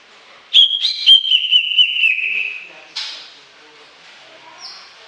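Cucak ijo (green leafbird) singing a loud whistled phrase: a high clear note that steps down into a run of quick warbled notes slowly falling in pitch. A short sharp call follows about a second later.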